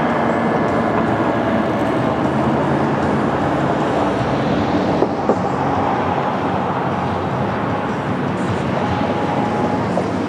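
ACA P-15 outdoor warning siren sounding during a test, its faint pitched tones sinking slightly in the first seconds and largely buried under a steady, loud rushing noise.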